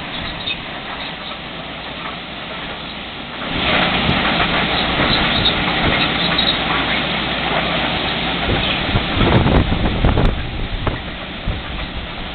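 LORAM ballast cleaner work train rolling slowly past while working, a steady mix of machinery noise and wheels on rail. It grows louder about three and a half seconds in, is loudest with a few knocks around nine to ten seconds, and eases off near the end.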